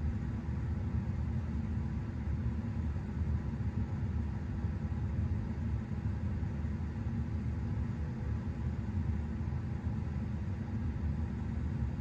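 Steady low rumble and hiss of a car cabin's background noise, with a faint constant hum.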